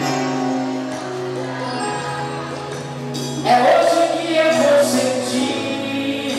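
Live gospel worship music: held keyboard chords, joined about three and a half seconds in by a louder singing voice through the PA.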